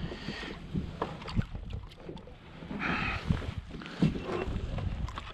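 Wind on the microphone and water lapping against a plastic kayak, with a few short knocks.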